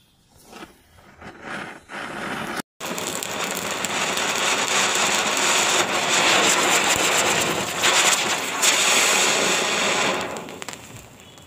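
Anar fountain firecrackers sputtering alight, then burning with a loud, steady hiss as they spray sparks. The sound cuts out for a moment about two and a half seconds in, runs on steadily, and dies away near the end.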